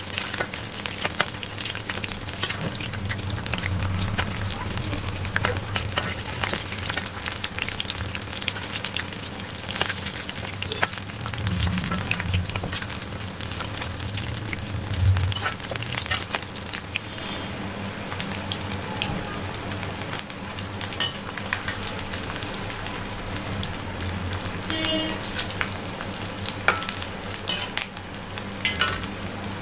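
Maida pakoras deep-frying in hot ghee in an iron kadhai over a moderate flame: steady sizzling with crackling bubbles. A few sharper clicks come from the slotted spoon turning them against the pan.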